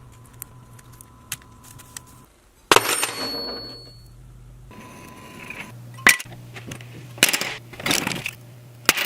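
Small metal pieces clinking and knocking together. One sharp ringing metal strike comes a little under three seconds in, and several more clacks follow near the end, over a faint steady low hum.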